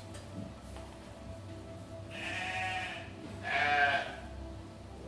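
Goats bleating: a fainter, drawn-out bleat about two seconds in, then a louder, shorter bleat about a second later.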